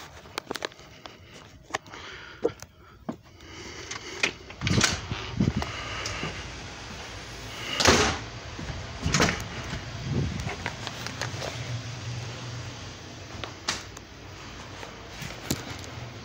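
A door opening and closing, with footsteps and handling noise, and a string of knocks and thumps, the loudest about eight seconds in. A low steady hum comes in about ten seconds in.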